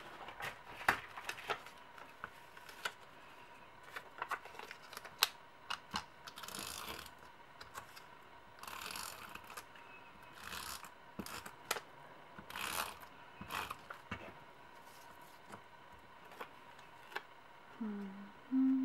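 Glue tape runner (glue roller) drawn across the back of a paper cutout in several short strokes, each stroke a half-second scratchy rasp, with the runner's mechanism and the paper clicking in between.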